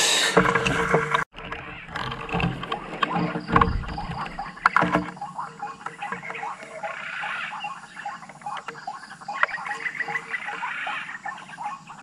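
White-breasted waterhens calling, a busy run of repeated croaking 'ruak-ruak' notes, with a few sharp knocks mixed in about a third of the way through.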